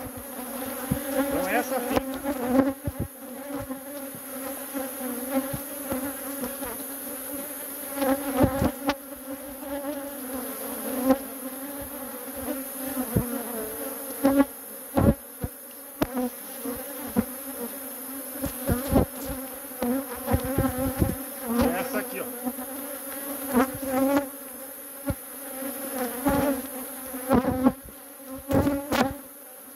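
Honeybees buzzing around an opened hive in a dense, steady hum, with frequent short sharp knocks and taps over it.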